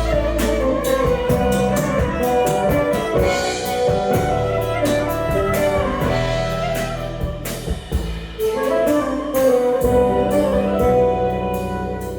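Instrumental passage from a small world-music band: clarinet and violin carrying sustained melody lines over guitars and a drum kit with steady cymbal and drum hits. The band thins out briefly about two-thirds of the way through, then comes back in full.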